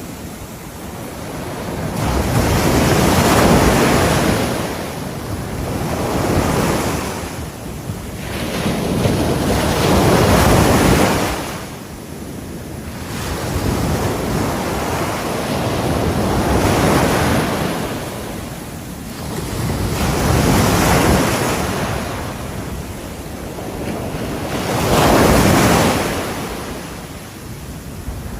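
Ocean waves breaking on a seashore, a swelling and receding wash of surf about every four seconds, with wind buffeting the microphone.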